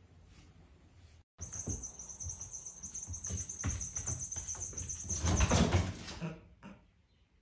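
A small toy ball rattling and rolling across a wooden parquet floor as a Bengal cat bats and chases it. There is a steady high rattle and a run of irregular knocks from the ball and the cat's paws, busiest and loudest just before it stops about six seconds in.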